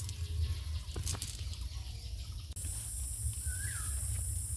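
Outdoor pond-side ambience: a steady low wind rumble on the microphone with a couple of faint clicks. A high steady buzz starts suddenly about halfway through, and a bird gives one short chirp near the end.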